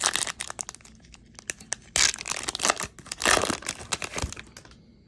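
Wrapper of a baseball card pack being torn open and crinkled, a dense crackling with two louder tearing bursts about two and three seconds in, then falling quiet near the end.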